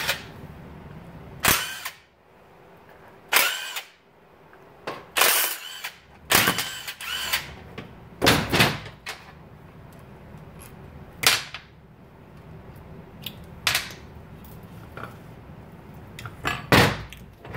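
DeWalt cordless impact wrench backing out 3/8-inch fine-thread bolts from a Velvet Drive marine transmission's adapter plate, in about ten short bursts, some spinning up with a rising whine.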